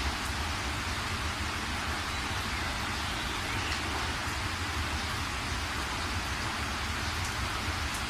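Steady rain falling, an even hiss with a low rumble underneath.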